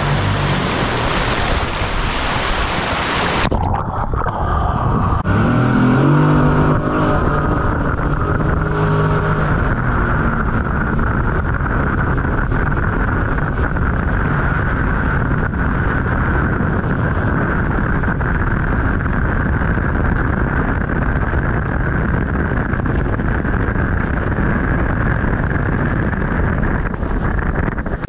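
RiverRat MiniJet Avenger jet boat running at speed with rushing water as it races past. About three seconds in, the sound turns dull and muffled, and the boat's engine and jet drone steadily from on board.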